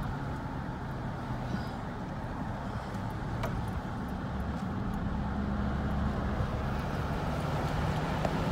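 Car interior noise while driving: a steady low engine and road hum.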